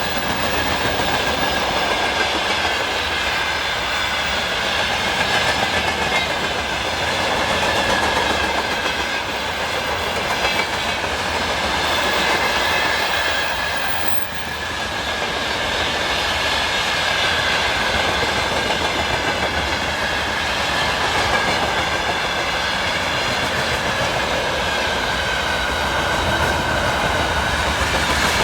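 A long train rolling past, its wheels clattering over the rail joints, with a steady high whine running over the noise. The sound dips briefly about halfway through.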